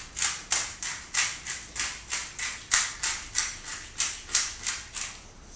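Pepper being dispensed over food in a steady rhythm: short, crisp, scratchy strokes, about three a second.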